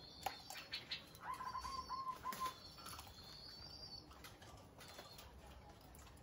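Zebra dove cooing: a quick run of about six short, staccato notes starting about a second in. Small birds chirp thinly in the background, and there are a few sharp clicks in the first second.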